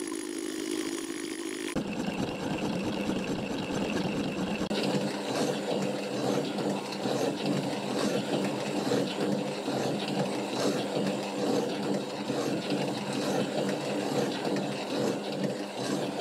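Metalworking machine tools cutting a steel angle. A milling machine's face cutter skims the surface for about the first two seconds. Then a small metal shaper takes over, running with a steady hum and faint clicks repeating at an even pace.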